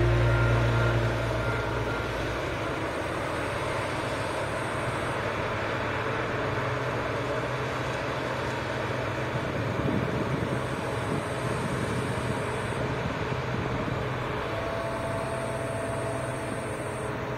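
Claas combine harvesters at work across the field, a steady distant mechanical drone of engines and threshing. Background music fades out over the first second or two.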